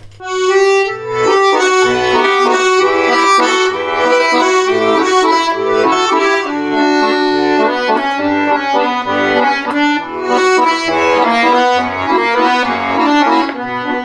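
Bayan (Russian button accordion) playing the instrumental introduction to a song: a melody in the right hand over bass notes that sound at a regular pace, starting a moment in.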